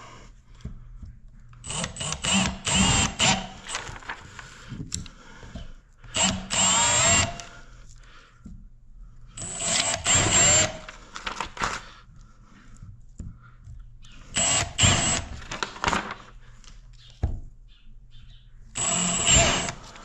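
Cordless drill boring mounting holes through a paper template into the wall, in about five short runs of a second or two each, its whine rising and falling in pitch as the trigger is worked.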